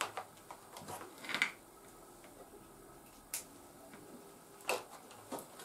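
A handful of light clicks and knocks, spread out with quiet in between; the sharpest is a single click a little past the middle.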